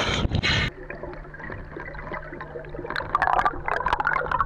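Water sloshing at the surface, then cut off abruptly as the microphone goes under. After that, muffled underwater bubbling with scattered crackling clicks over a low steady hum, busier in the last second or so.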